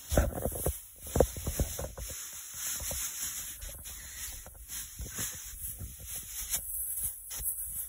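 Cheerleading pom-poms rustling and crackling as they are shaken hard, with a few thumps on the carpeted floor in the first second or so.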